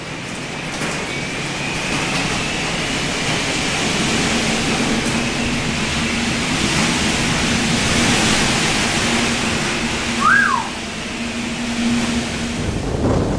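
Cyclone storm wind and rain blowing hard outside, a steady rushing noise that swells over the first few seconds, with a low steady whistling tone joining in after about four seconds. A short high squeak stands out about ten seconds in.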